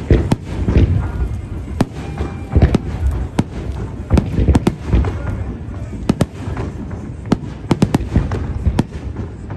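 Aerial firework shells bursting in a fireworks display: many sharp bangs in quick, irregular succession over deeper booms.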